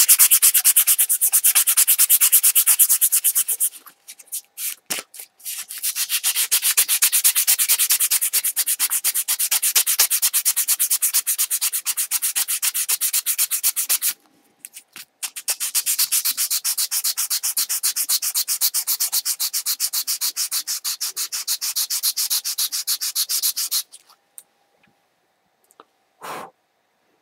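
Sandpaper rubbed quickly back and forth over a piece of Teflon, roughening its surface to make it superhydrophobic. The scratching comes in three bouts of rapid strokes, with short pauses about 4 and 14 seconds in, and stops about 24 seconds in.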